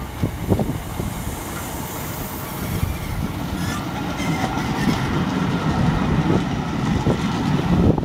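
Hauled Class 378 electric multiple unit and a coach rolling past behind a Class 66 diesel locomotive, a steady rumble with wheels knocking over rail joints, sharpest about half a second in.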